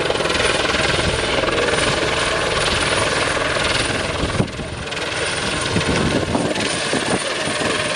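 Airbus Helicopters H120 Colibri in flight: loud, steady rotor and turbine noise. It drops briefly about halfway through, then comes back.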